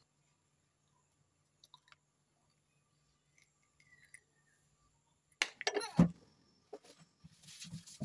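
Near silence with a few faint clicks, then about five and a half seconds in a short burst of crackling and a sharp knock: quail eggshells being cracked open by hand over a plastic bowl.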